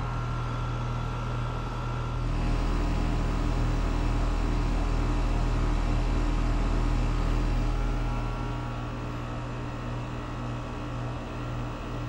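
Carrier Sentry 5-ton central air conditioner's outdoor condensing unit running in cooling mode: a steady low hum from the compressor under the rush of air from the condenser fan. It is really quiet, and a little louder for a few seconds in the middle.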